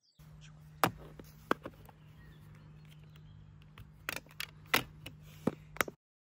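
Sharp plastic clicks and clatter from a small Makita screwdriver-bit case being opened and bits handled in it, about six separate clicks spread out, over a steady low hum. The sound cuts off suddenly near the end.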